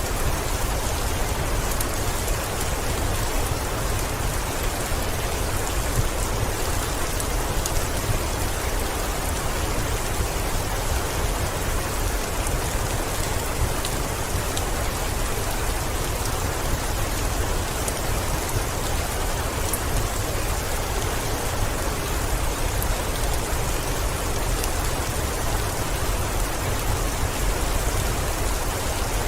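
Heavy rain falling steadily on a window, an even hiss with scattered fine drop ticks.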